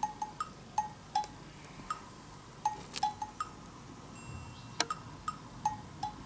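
Background music: a light, sparse tune of short plinking percussive notes alternating between two pitches, two or three a second.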